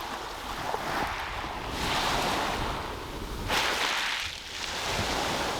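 Sea waves breaking on the shore, the surf swelling and falling back every one and a half to two seconds, with low wind rumble on the microphone.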